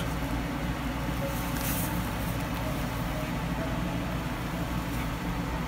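Steady low background hum with an even hiss, unchanging throughout.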